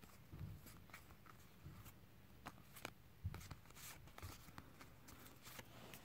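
Faint papery flicks and slides of Battle Spirits trading cards being flipped through in the hands, card rubbing against card, with irregular soft clicks.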